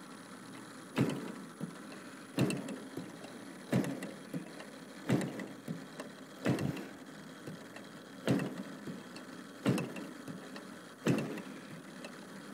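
DLE 55 single-cylinder two-stroke gas engine being cranked over again and again without firing, one short chug about every second and a half. It is hard-starting when warm.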